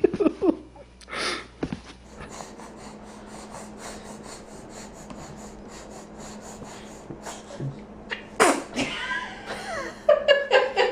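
A baby sneezing: a short sneeze about a second in, then a louder sneeze about eight and a half seconds in.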